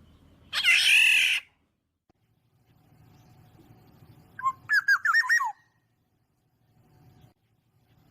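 Recorded black-naped oriole calls played through a Bluetooth speaker: one harsh squawk about half a second in, then a quick run of fluty whistled notes a few seconds later.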